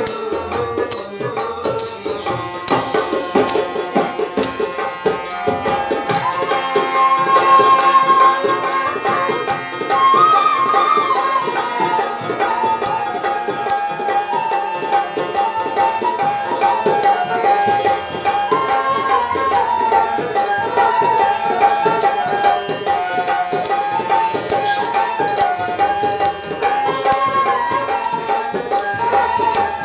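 Bhawaiya folk ensemble in an instrumental passage: steady barrel-drum strokes with banjo and harmonium. From about six seconds in, a flute carries a smooth, ornamented melody over them.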